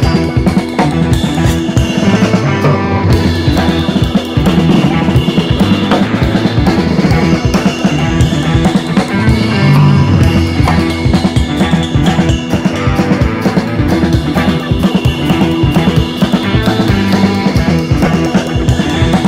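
Background rock music with a steady drum beat and bass.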